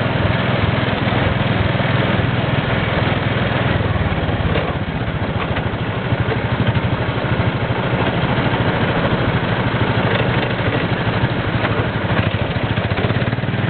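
Small gasoline engine of an antique-style amusement ride car running steadily, heard from on board the car, with a rapid, even putter of firing pulses.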